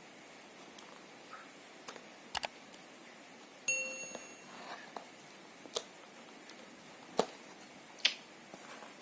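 Scattered clicks and taps from handling a flash drive and its packaging, with one short, clear ping about four seconds in that rings briefly and fades.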